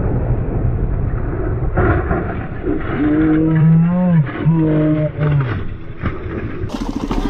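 Vehicle engine and road rumble, with two long, low, steady-pitched tones in the middle, the first about a second and a half long and the second about a second long.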